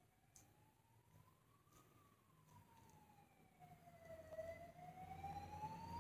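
Faint emergency-vehicle siren wailing. Its pitch slides slowly up and down, about one rise and fall every five seconds, and it grows louder in the second half.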